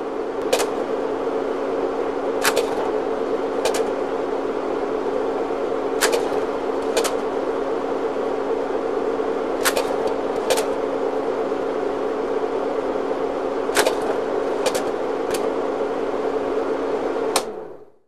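Old-film noise effect: a steady low hum and hiss, with about eleven sharp pops scattered at random like dust and scratches on a worn film soundtrack. It cuts off suddenly near the end.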